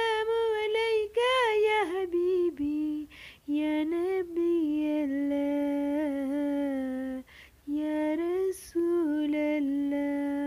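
A woman singing a devotional song unaccompanied, holding long, slightly wavering notes, with two short pauses for breath, about three seconds in and seven and a half seconds in.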